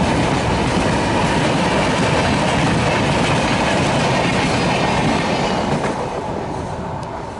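Passenger coaches of a Rajdhani Express rushing past on the track, wheels running over the rails in a loud, dense noise. The sound fades from about five seconds in as the train moves away.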